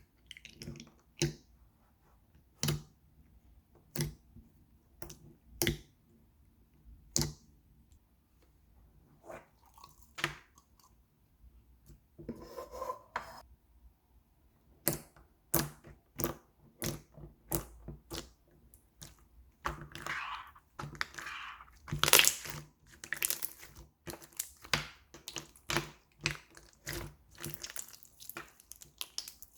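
Slime being handled and pressed: sharp sticky pops and clicks, spaced about a second or more apart at first, then coming in quicker crackling runs in the second half.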